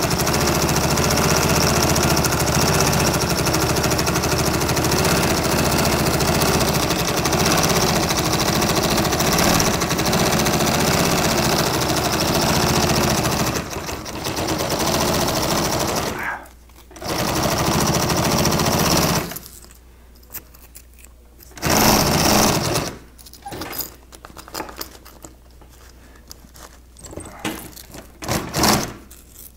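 Industrial sewing machine (Consew) stitching a zipper onto canvas: one long steady run of about sixteen seconds, a short stop, another run of about two seconds, then several short bursts of a few stitches each.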